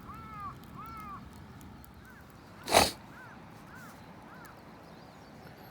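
A crow cawing, a quick series of arched calls about half a second apart, with fainter calls answering a little later. Near the middle comes a single loud, sharp crack.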